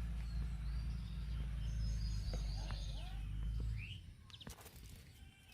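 Small birds chirping in short gliding calls over a low steady rumble, which drops away about four seconds in; a few sharp clicks follow.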